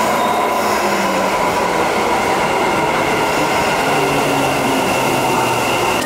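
Keikyu 1000 series electric train running alongside the platform of an underground station, a steady loud rumble with high whining tones held over it.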